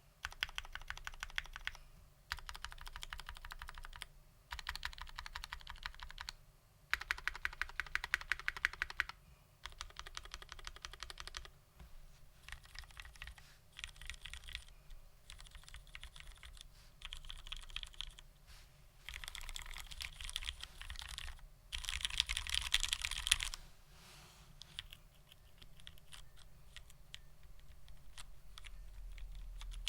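Typing on a UTD 356mini mechanical keyboard with lubed Cherry Vintage Black linear switches in an aluminium plate, with GMK keycaps: fast runs of keystrokes in bursts of one to two seconds, separated by short pauses.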